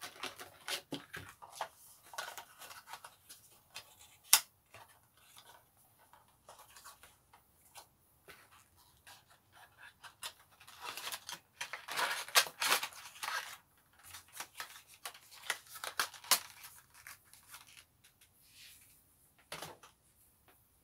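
Small glass essential-oil bottles and their cardboard box being handled: scattered clicks and taps, with rustling of cardboard and packaging. A sharp click comes about four seconds in, and denser rustling comes around the middle.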